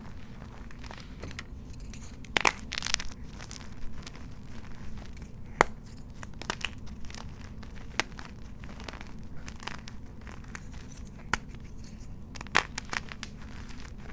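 Gym chalk being crushed and crumbled, an irregular run of crunches and crackles with a few louder snaps, over a steady low hum.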